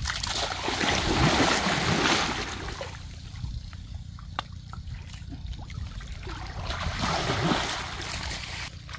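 Muddy creek water splashing and sloshing as people wade waist-deep and grope by hand for fish. There are two stretches of splashing, one in the first few seconds and another near the end, with quieter lapping water between.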